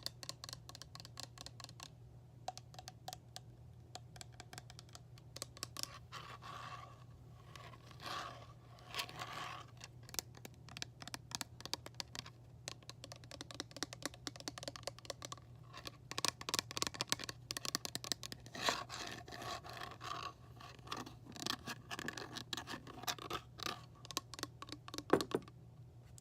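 Hands tapping and scratching on assorted objects: fast runs of small clicks, with stretches of scraping.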